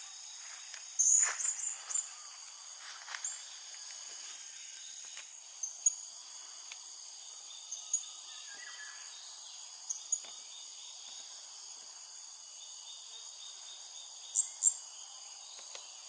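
Blue-crowned hanging parrots giving short, sharp, high-pitched calls: a quick cluster about a second in, then single calls every couple of seconds and a loud pair near the end. These are the decoy birds in the trap cage calling to lure wild ones. A steady, high insect drone runs underneath.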